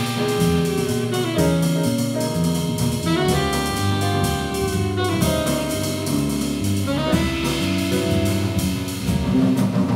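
Live jazz quartet playing: saxophone carrying a melody of held notes over a walking electric bass line and drum kit with steady cymbal strokes.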